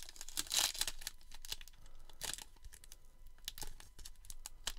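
Fingers picking at and crinkling the sealed wrapper of a 2021 Topps Gallery baseball card pack, with scattered crackly tearing sounds, loudest about half a second in: the wrapper is proving hard to tear open.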